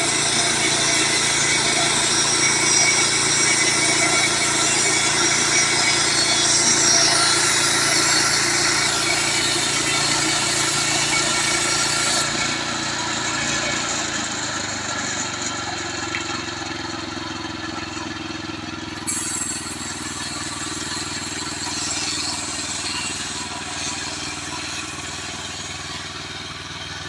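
Gasoline engine of a Woodland Mills portable band sawmill running steadily while sawing a pine log, getting quieter from about halfway through.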